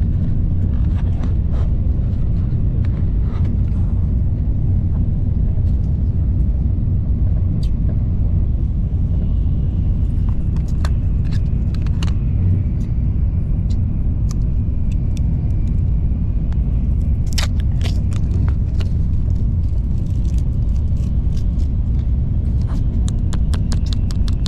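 Steady low rumble of a Shinkansen bullet train running at speed, heard from inside the passenger car. Scattered light clicks and crinkles come from an ice cream cup being handled and its paper lid peeled back.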